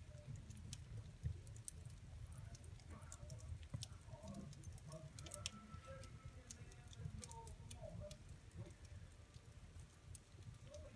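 Wood fire in a fireplace crackling, with scattered sharp pops and snaps over a steady low rumble.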